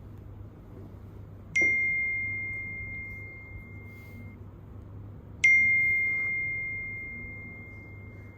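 Two bell-like electronic dings about four seconds apart, each a single clear tone that rings out and fades over a couple of seconds. They come during a Lenovo smart lock's Wi-Fi pairing, while it connects to the network.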